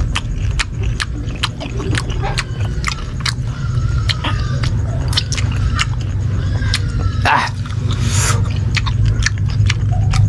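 Close-up crunching as a person chews crisp green mango, a sharp crunch about twice a second.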